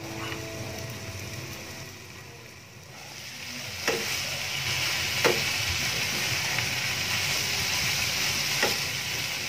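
Chopped cabbage and meat sizzling in a frying pan, quieter at first under a glass lid, then louder once uncovered and stirred with a wooden spatula, which knocks against the pan three times.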